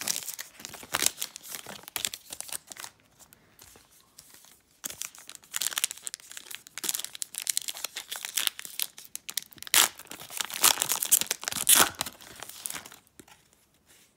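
Foil wrapper of a Panini Contenders football card pack being torn open and crinkled, in crackling bursts that are loudest in the second half.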